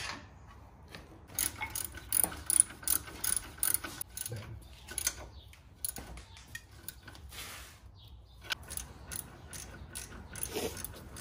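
Hand ratchet wrench clicking in runs of quick strokes, tightening the nut on a newly fitted sway bar end link.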